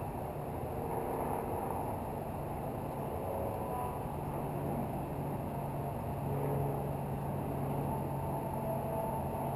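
Steady low rumble of city road traffic with a constant low hum underneath; no peacock call.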